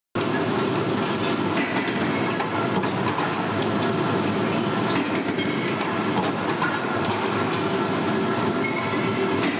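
Machinery in a brass fittings factory running: a loud, steady mechanical din of clatter and rattling with faint high squeals, cutting in abruptly just after the start.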